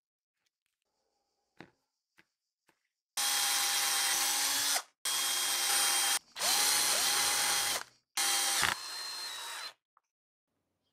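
Cordless drill running in four bursts of a second or two each, drilling and driving a screw into plywood; in the third burst the motor pitch dips briefly under load and recovers, and the last burst runs quieter after a knock. Before that, a few light clicks of a hex key on a set screw.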